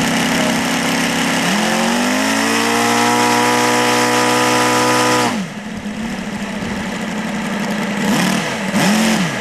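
ASP 400 five-cylinder four-stroke radial model aircraft engine on a ground run-up. It idles, is throttled up smoothly to a steady higher speed for about four seconds, then is chopped back to idle. Two quick throttle blips follow near the end.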